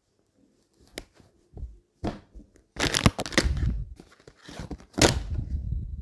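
Packaging being handled: bursts of rustling and crinkling, with a sharp click about a second in and low bumps.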